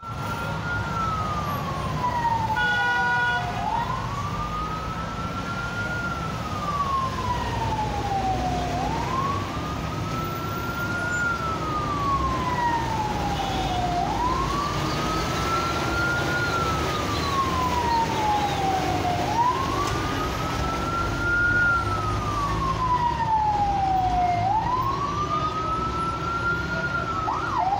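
Ambulance siren wailing: each cycle climbs quickly in pitch, then falls slowly, repeating about every five seconds, over the low rumble of idling traffic. A brief steady tone sounds about three seconds in.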